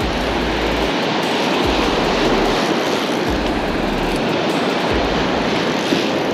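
A loud, steady rush of surf breaking on the beach, mixed with wind noise on the microphone. Low wind rumbles come and go every second or so.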